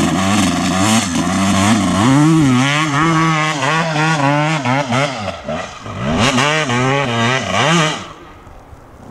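Motocross bike engine at high revs climbing a steep sand hill, its pitch surging up and down again and again as the throttle is worked. The engine sound drops away suddenly about eight seconds in.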